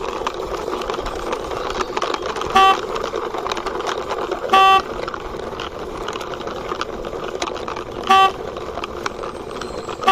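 Four short vehicle-horn toots, spaced a couple of seconds apart, over a steady running noise as a toy motorbike is pushed along by hand.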